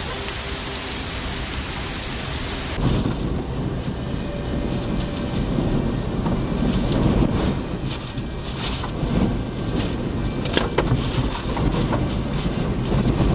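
Heavy rain and strong gusting wind: rain and wind rush over the microphone with a low rumble. About three seconds in, the sound changes to rain and wind beating on a car, with scattered sharp taps of drops striking the windshield.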